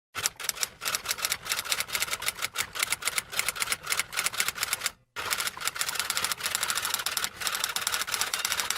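Rapid typing: keys clacking about eight times a second in an uneven rhythm, in two runs with a short break about five seconds in.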